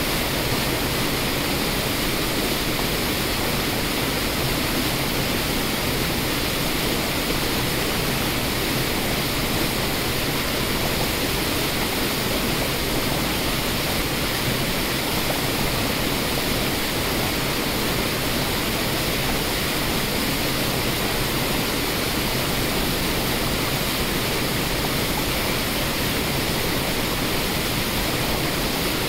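Waterfall cascades rushing over rocks: a steady, unbroken rush of water that stays even throughout.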